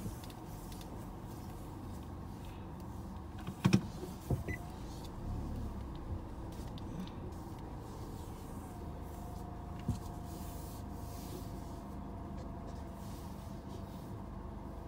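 Steady low rumble inside a car with the engine running, with a few knocks about four seconds in and one more near ten seconds.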